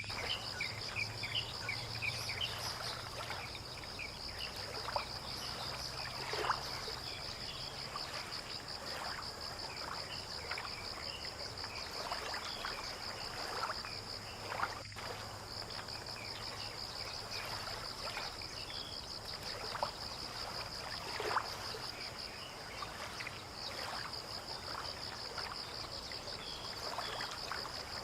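Waterside dawn ambience at a fishing port: a steady, pulsing high insect trill with scattered short chirps and soft irregular water splashes. A low engine hum, like a distant boat, runs for the first several seconds and again midway.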